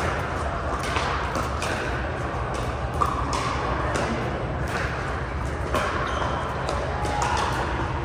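Pickleball paddles striking a plastic ball, irregular sharp pocks from several courts at once, each with a short echo, over a steady low hum.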